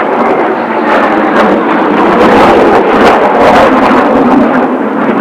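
Kawasaki T-4 jet trainers of a six-ship formation flying past, a loud jet roar that swells to its loudest about halfway through, with a crackling edge, then eases slightly.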